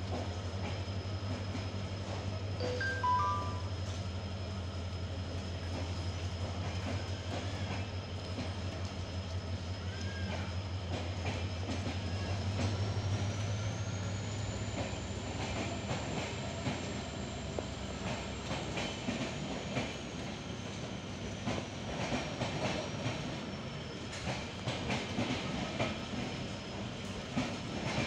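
Diesel-hauled Indian express train (WDP-class locomotive) on the move: a steady low diesel drone for about the first half, then wheels clattering over rail joints in a rapid run of clicks toward the end. A thin high whine rises in pitch midway and falls away again.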